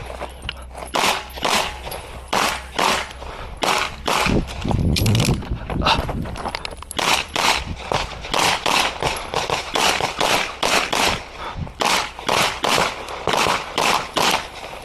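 CZ Shadow 2 9mm pistol firing a competition string: many shots, mostly in quick pairs, with short pauses between groups as the shooter moves through the stage.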